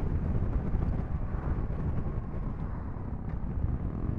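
Wind buffeting the helmet-mounted microphone over the low rumble of the motorcycle being ridden at road speed.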